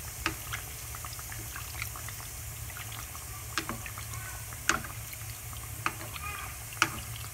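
Yeast-dough donuts deep-frying in hot oil: a steady sizzling hiss while a metal spoon ladles hot oil over their tops to make them puff, with a few sharp clicks scattered through.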